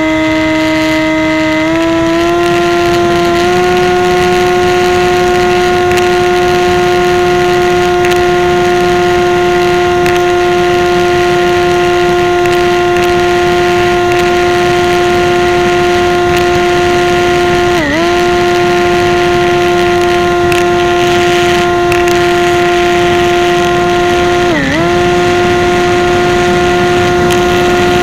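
RC model plane's motor and propeller giving a steady whine, heard from a camera mounted on the plane, with rushing air underneath. The pitch steps up in the first few seconds and then holds steady. Twice, about eighteen and twenty-five seconds in, it dips briefly and comes straight back as the throttle is blipped.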